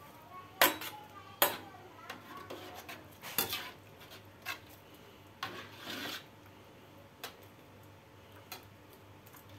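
Metal slotted skimmer clinking and scraping against a metal wok as boiled genjer is scooped out of the water. There are several sharp clinks, the loudest two in the first couple of seconds, and a longer scrape a little past halfway.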